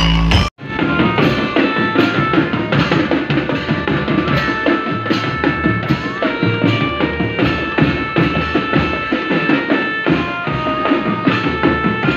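Loud bass-heavy music from a stacked carnival sound system, which cuts off abruptly about half a second in. It is followed by drum-led music with held melodic notes.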